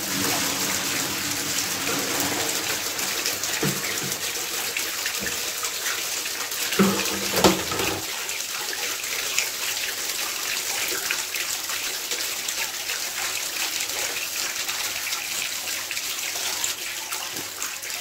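Dirty water jetting out of the opened drain plug of a clogged central-heating panel radiator and splashing into a plastic basin: a steady rushing splash that starts abruptly. This is sludge and dirt being flushed out of the radiator. Two brief knocks come about seven seconds in.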